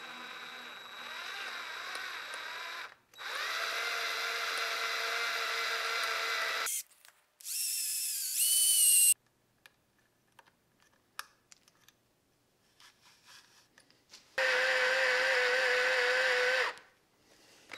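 Hand-held electric drill drilling a hole into the milling machine's metal casting, run in four bursts with stops between. The third, shortest burst is the loudest and its pitch rises sharply; a longer pause with only faint ticks comes before the last burst.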